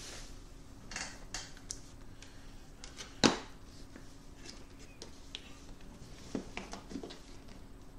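Packaging being handled: a hand rummages in a cardboard shipping box and turns a boxed item over, with scattered light clicks and rustles and one sharp knock about three seconds in. A faint steady hum runs underneath.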